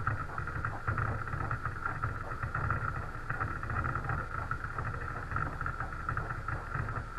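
Onboard audio of the Falcon 1 second stage's Kestrel engine burning just after ignition: a steady low rumble under a rough, mid-pitched hiss.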